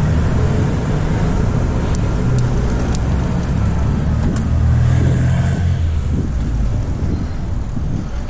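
Street traffic heard from a moving bicycle: a motor vehicle's engine running nearby, strongest around the middle, over wind rumble on the microphone, with a few light ticks about two to three seconds in.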